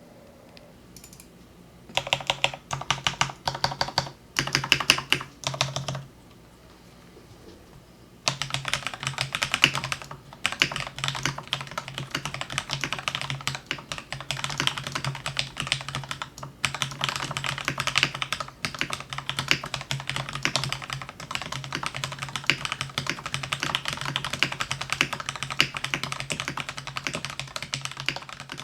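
Typing on a Corsair K68 mechanical keyboard with Cherry MX Red switches. A few short bursts of keystrokes start about two seconds in, then comes a pause, and steady fast typing runs on from about eight seconds in.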